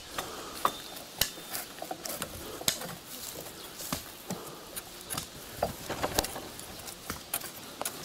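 Irregular sharp knocks and clicks of wood on wood, roughly one a second, from birch poles and sticks.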